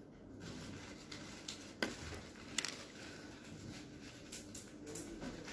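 Several faint, sharp clicks of a small screwdriver against the metal parts of a quartz wristwatch movement, scattered with gaps between them, over low room noise.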